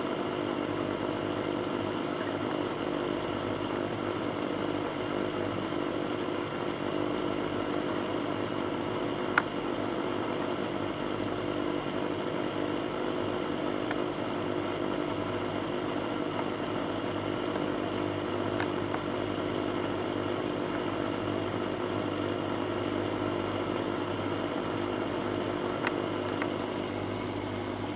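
Aquarium equipment running with a steady low hum and hiss, broken by three short clicks.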